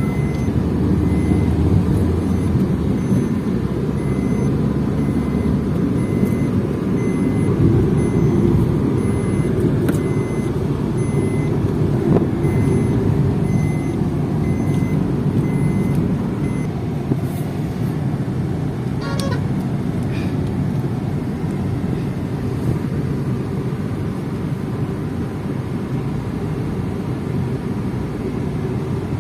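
Car driving on a road, heard from inside the cabin: a steady low rumble of engine and tyres. A faint electronic beep repeats through the first half.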